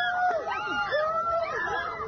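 Several people shouting and wailing at once in distress, their overlapping cries rising and falling in pitch.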